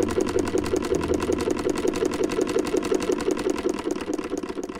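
White Peerless VS1 vintage sewing machine running at speed: a rapid, even clicking of the needle and shuttle mechanism, about eight stitches a second, over a low hum, tapering off near the end.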